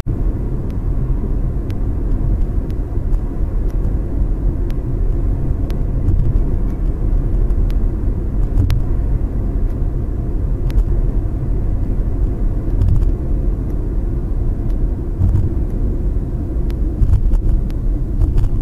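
Steady low rumble of a car driving, tyre and engine noise heard inside the cabin, with scattered faint clicks.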